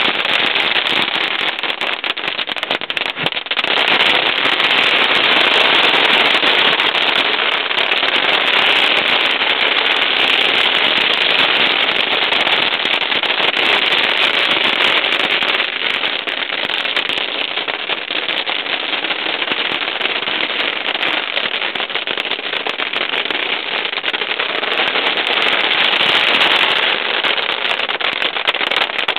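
Firecrackers going off in a dense, unbroken volley of rapid bangs and crackle, easing a little past the middle and building again near the end.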